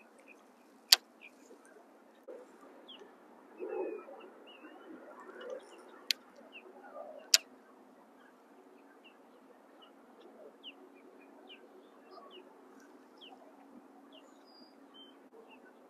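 Birds chirping faintly and repeatedly over a low background hiss, with three sharp clicks: one about a second in and two more about six and seven and a half seconds in.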